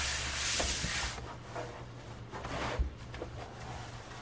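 A hand rubs and slides across the plastic back cover of a 32-inch LG monitor for about the first second. Then the monitor is lifted and tipped up off the workbench, with handling scrapes and one soft knock just under three seconds in.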